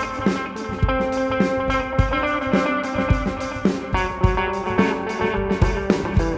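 Electric guitar (a Fender Meteora through a modelling unit and a Fender Tone Master amp) playing held, ringing ambient chords and notes over drums keeping a steady shuffle beat.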